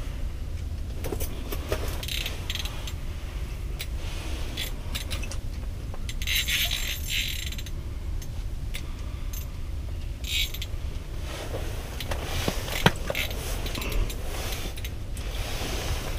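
Ultralight spinning reel working against a hooked northern pike: the drag ratchets in short spurts as the fish takes line, the longest about six seconds in, with a few sharp clicks, over a steady low rumble.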